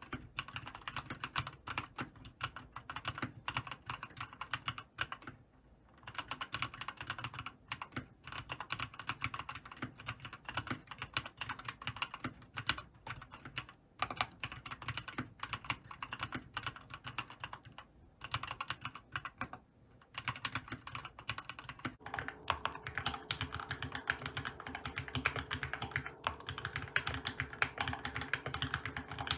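Typing on a Keychron K2 Retro mechanical keyboard with Krytox-lubed Gateron Red linear switches and ABS doubleshot keycaps, in runs of keystrokes with a few short pauses. About 22 s in it changes to typing on a Keychron K4, also with Gateron Red switches and ABS keycaps, with a faint steady hum underneath.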